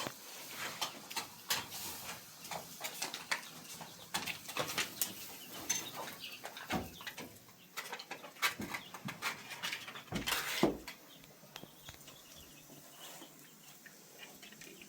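A run of irregular clicks and knocks, with a louder cluster of knocks about ten seconds in.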